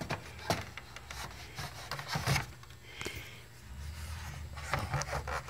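A few light knocks and clicks with some rubbing: a plastic stereo head unit being handled in its snug-fitting wooden box.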